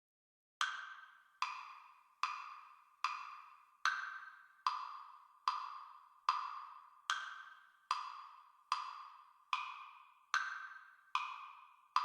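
Wood-block metronome click ticking steadily, about fifteen identical clicks at roughly 73 beats a minute with silence between them, giving the tempo before the music comes in.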